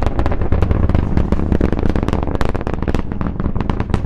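Falcon Heavy rocket's 27 Merlin 1D engines at full thrust during ascent, heard from the ground: a loud, deep rumble dense with sharp crackling pops.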